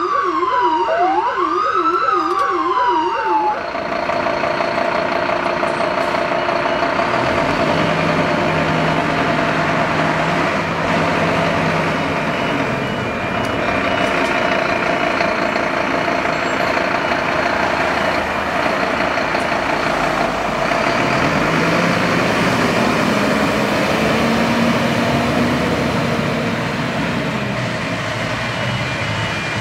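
Fire truck siren heard from inside the cab: a wailing tone that falls and rises, mixed with a fast yelp, cutting off about three seconds in. Then a Scania fire pumper's diesel engine running steadily as the truck pulls out and drives away, with a dense wash of engine and road noise.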